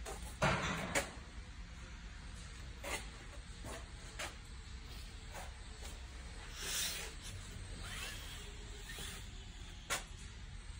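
Scattered light knocks, clicks and rustles over a low steady hum, with the loudest knock and rustle about half a second in and a sharp click near the end. No engine is running.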